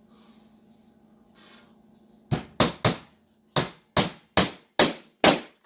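A 13-ounce hammer driving small nails into a glued wooden beehive frame: eight quick, sharp strikes that begin a little over two seconds in.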